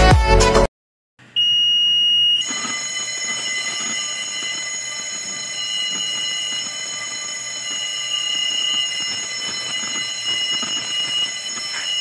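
Background music breaks off less than a second in, and after a brief silence a fire alarm bell starts ringing: a steady, high-pitched continuous ring.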